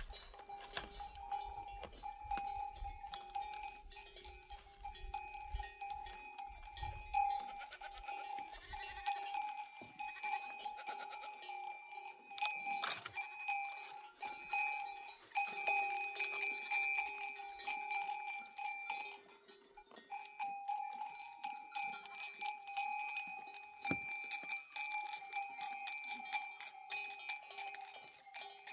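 Sheep bells on a moving flock clanking and jingling continuously in a dense, irregular clatter, with a sheep bleating about eight seconds in.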